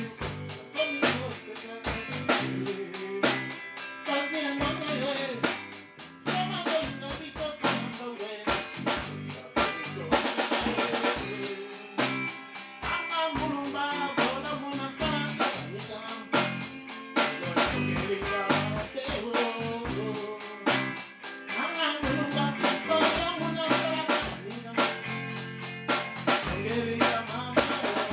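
A small band playing live: a drum kit keeps a steady beat with snare and bass drum, under a bass guitar and a strummed acoustic guitar, with a man singing into the microphone.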